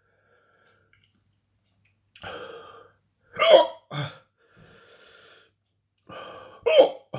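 A man hiccuping, two sharp hiccups about three seconds apart with a smaller one just after the first, and breathing between them. The hiccups are set off by the heat of a superhot chilli pepper he has just eaten.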